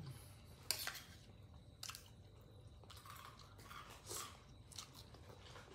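A person chewing and crunching a mouthful of shredded green mango salad, close to the microphone, with a few short sharp clicks.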